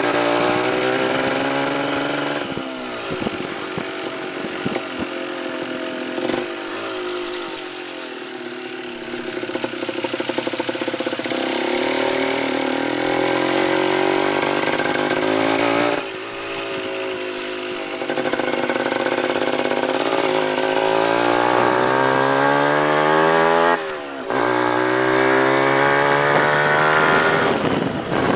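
Motorbike engine running under way on a rough dirt track: the note climbs as it accelerates and drops sharply several times as the rider changes gear or lets off the throttle.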